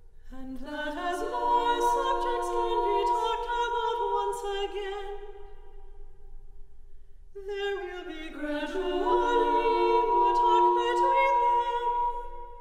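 Women's vocal ensemble singing a cappella: voices enter one after another and hold a close chord. There are two phrases, with a short break about six seconds in.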